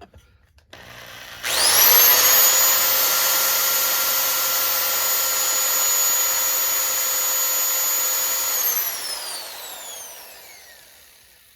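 Electric drill with a titanium-coated bit drilling into a hardened broken bolt. The drill spins up about a second and a half in and runs with a steady whine for about seven seconds, then winds down, its pitch falling. The bit makes no headway: it barely scratches the bolt.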